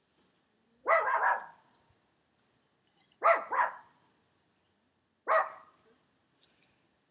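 A dog barking in three short bursts about two seconds apart, the middle one a quick double bark.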